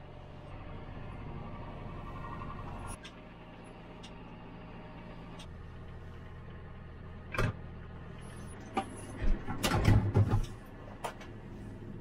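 John Deere tractor engine running steadily, heard from inside the cab, its note changing about three seconds in and again a few seconds later. A sharp click comes about seven seconds in, and a run of loud clunks and rattles follows around nine to ten seconds in.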